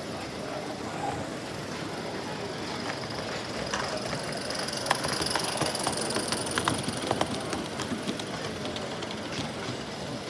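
Model narrow gauge train rolling past, its wheels clicking over the rail joints, most busily in the middle, with a high hiss as the train goes by; hall chatter underneath.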